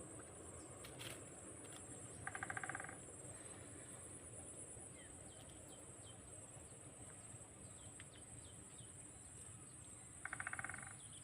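Steady high-pitched insect buzz, with faint scattered chirps and two short pulsed trilling calls, one about two seconds in and one near the end.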